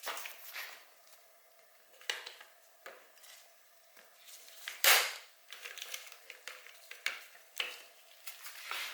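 Scattered clicks, knocks and plastic crackling as a KX65's radiator fins are worked loose and pulled off by hand, with one sharp knock about five seconds in.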